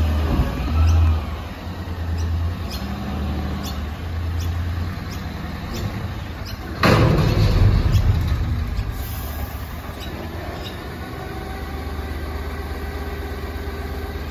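Front-loader garbage truck's diesel engine running as the truck creeps up to a bin. About seven seconds in comes a sudden loud air-brake hiss that fades over a second or two. The engine then runs steadily while the hydraulic arms lift the bin up over the cab.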